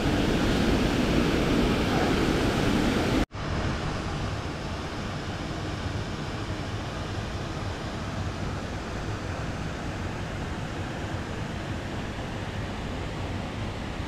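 Waterfall rushing steadily, a dense, even noise of falling water. About three seconds in it breaks off abruptly, then goes on slightly quieter and duller.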